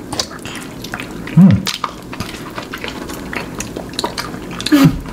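Mouth sounds of chewing soft konjac jelly squeezed from a small plastic pouch, with many small clicks and crinkles from handling the pouch. A short hummed 'mm' about a second and a half in, and another brief vocal sound near the end.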